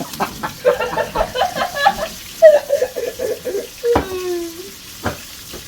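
Breaded rabbit pieces sizzling in hot frying oil, a steady hiss with voices talking over it and two sharp knocks near the end.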